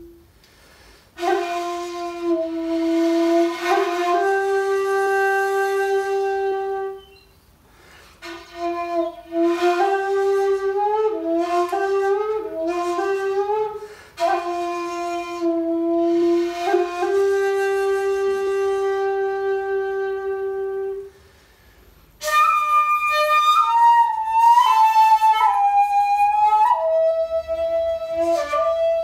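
Solo shakuhachi, the Japanese end-blown bamboo flute, playing slow phrases of long held notes and short stepwise turns with audible breath, separated by brief pauses. About 22 seconds in, a louder phrase starts in a higher register and steps down to a long held note, played on a 3D-printed shakuhachi rather than the traditional bamboo one.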